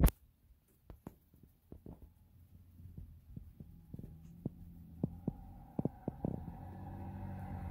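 Low rumble of a car on the move, heard from inside the cabin, growing louder, with scattered knocks and clicks. A steady hum comes in near the end.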